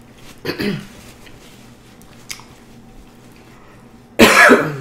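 Close-miked eating sounds: soft mouth sounds and small clicks, then a bite into a soft piece of food. A loud, sudden mouth noise comes just before the end.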